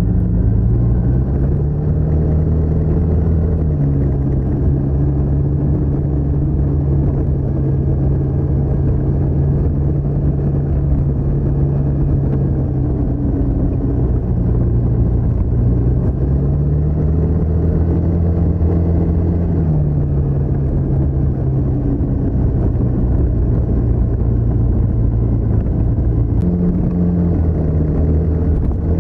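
TVS NTorq 125 scooter's single-cylinder engine and stock exhaust running under way, its pitch rising and easing back a few times as the throttle is opened and closed.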